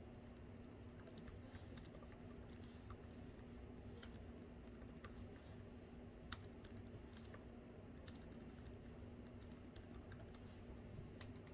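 Soft typing on a laptop keyboard: irregular, scattered key clicks over a faint steady hum.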